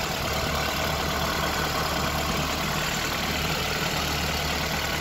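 VAZ-2108 (Lada Samara) four-cylinder engine idling steadily with the bonnet open, warming up after a radiator replacement while the thermostat has yet to open and circulate the coolant.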